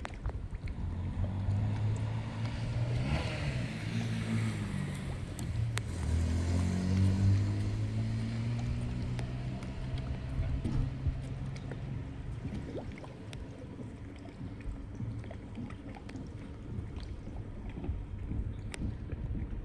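A motorboat engine drones for about the first twelve seconds, its pitch shifting as it passes, then fades. It sits over a steady wash of moving water.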